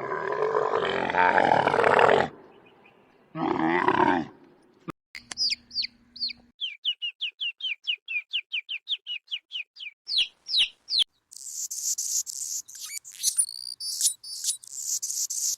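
A sequence of animal calls: a rough growl of about two seconds, a second short growl, then a long run of quick, high bird chirps at about four a second, and finally high, shrill, scratchy calls near the end.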